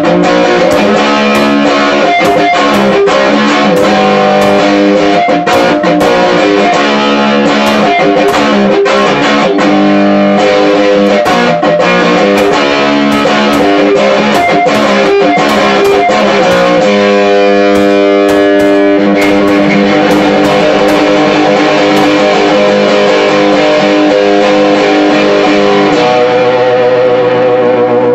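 Loud, steady background music led by guitar, with chord changes along the way.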